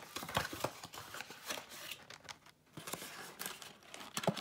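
Hands handling and opening a cardboard trading-card blaster box: a string of short taps, scrapes and rustles of cardboard, with a brief lull partway through.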